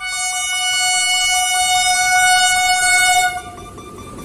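WAP7 electric locomotive's air horn sounding one long blast of about three seconds, then cutting off, over a rapid pulsing beep. Near the end the rumble of the approaching train starts to rise.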